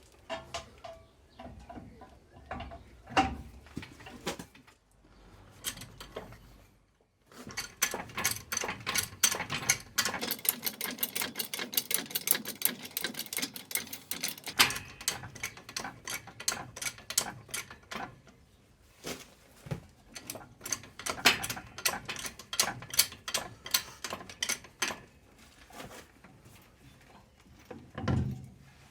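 Hand ratchet clicking in long, rapid runs as nuts are run on to fit the front suspension ball joints, with a few scattered knocks before and a thump near the end.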